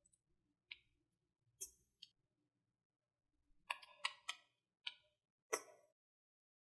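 A handful of short, light clicks and taps, about eight scattered over several seconds with near silence between them.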